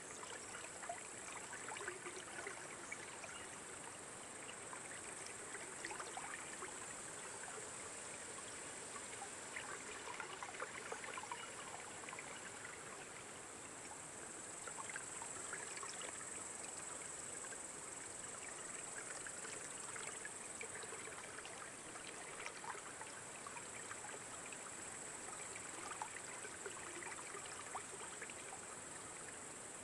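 Steady trickling or bubbling water, with many small ticks and pops scattered through it.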